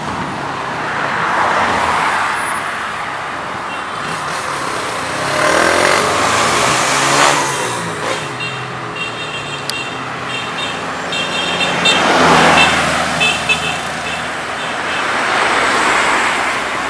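Road traffic: vehicles passing close one after another, each a swell of engine and tyre noise that rises and fades, four times. A faint stuttering high tone comes and goes in the middle seconds.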